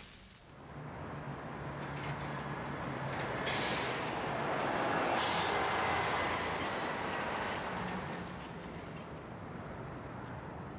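A vehicle passing on a street, a low engine hum under a broad rushing noise that swells to a peak about halfway through and then fades. Two short bursts of high hiss come near the middle.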